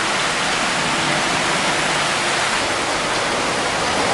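Steady rush of water, an even hiss-like noise with no breaks, from floodwater or heavy rain.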